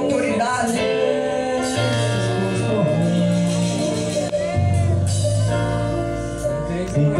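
Church worship music: sustained keyboard chords over held bass notes, with singing.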